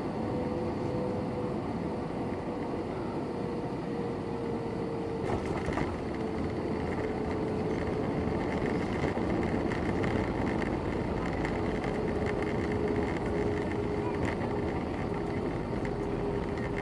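Cabin noise of an Airbus A321 touching down and rolling out on the runway: a single thud about five seconds in as it lands, then the engine and rolling noise swell for several seconds while the aircraft slows. Under the noise a steady engine whine slowly falls in pitch.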